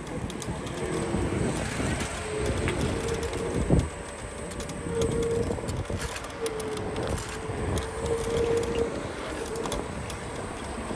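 Riding an electric scooter along a road: wheels rumbling and jolting over the surface, with wind on the microphone and a humming tone that comes and goes.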